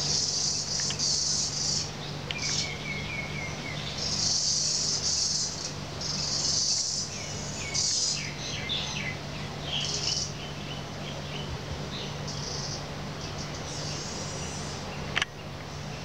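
Birds singing: repeated high, rapid trilled phrases about a second long, with shorter, lower chirps between them. A sharp click near the end.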